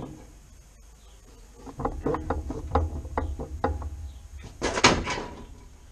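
Irregular knocks and clicks as a cut-out sheet-steel bulkhead section is carried off and set down, ending in a loud metallic clatter about five seconds in.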